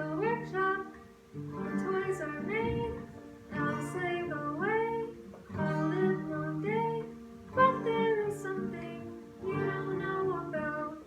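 A child singing a song in short phrases, accompanied by acoustic guitar chords.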